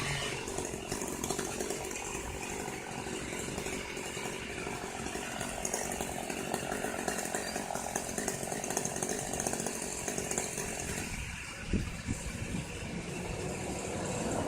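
Chainsaw running steadily while cutting eucalyptus, with a knock about twelve seconds in.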